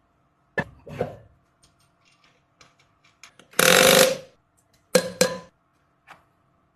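Workshop tool and metal-part noises while a half shaft and wheel go back onto an electric tricycle's rear axle: a couple of knocks, then a loud rasping burst of just under a second, then two more knocks.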